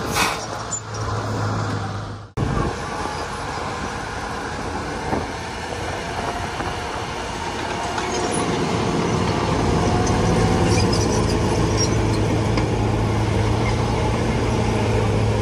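Diesel engine of heavy earthmoving machinery running steadily with a deep drone, broken off for an instant about two seconds in and growing louder from about eight seconds in.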